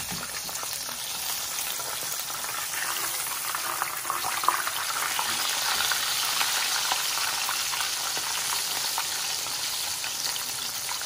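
Breaded chicken breast shallow-frying in hot oil in a pan: a steady sizzle and crackle. It grows louder for a few seconds after the chicken is turned over with tongs, with a few sharp clicks from the tongs.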